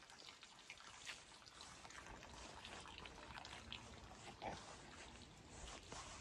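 Near silence: faint outdoor ambience with a few scattered soft ticks.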